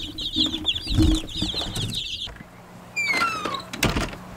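A brooder full of newly hatched chicks peeping, a dense run of rapid high chirps that cuts off a little past halfway. A short falling squeak and a sharp knock follow near the end.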